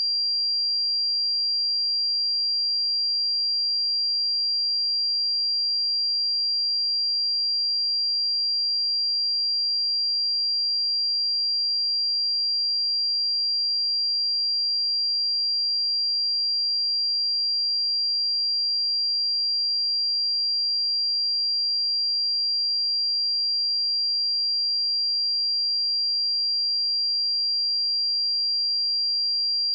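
A steady, unbroken 4751 Hz sine-wave test tone: a single high-pitched pure note held at constant loudness.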